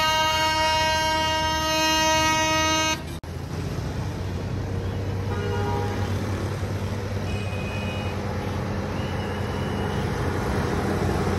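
A vehicle horn held in one long steady blast that cuts off about three seconds in. After it, the low steady running of the Mercedes-Benz Actros tractor unit's diesel engine as it hauls an oversize load at walking pace. A few faint short horn toots come from the surrounding traffic.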